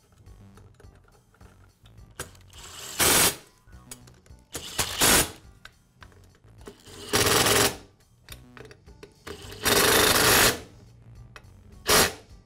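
Power screwdriver driving screws in five short runs, each a fraction of a second to about a second long, with the longest one about two-thirds of the way through.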